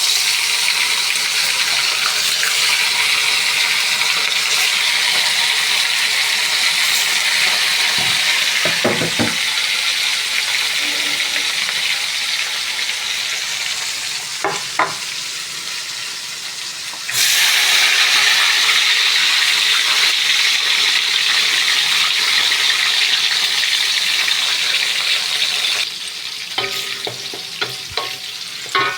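Food frying in hot oil in a pan, a steady sizzle, with a few knocks of a utensil against the pan. The sizzle jumps louder about two-thirds of the way through and eases off near the end.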